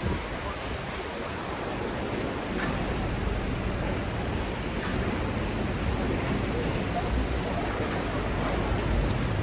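Steady wash of sea and wind: waves slapping around a boat's hull and cave mouth, with wind rushing on the microphone.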